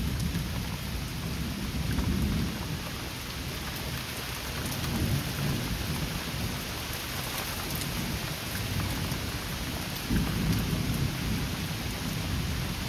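Heavy rain falling steadily in a thunderstorm, with low rumbles of thunder swelling about two seconds in and again near the end.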